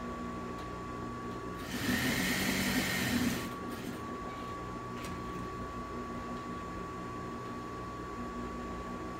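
Industrial sewing machine stitching in one short run of about a second and a half, beginning about two seconds in, over a steady hum with a thin high tone.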